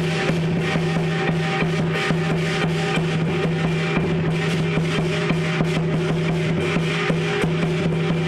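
Lion dance percussion: a large drum beating a steady, driving rhythm with clashing cymbals over a sustained ringing tone.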